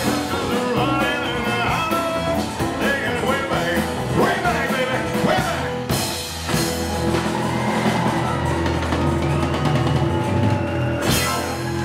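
Live rock-and-roll band with acoustic guitars and drum kit playing loudly, with a male lead vocal over roughly the first half. The band then holds long notes, and there is a sharp loud hit near the end.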